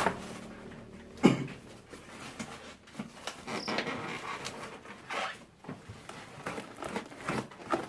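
Cardboard packaging being handled and pulled open, in irregular rustles and scrapes, with one sharp knock a little over a second in.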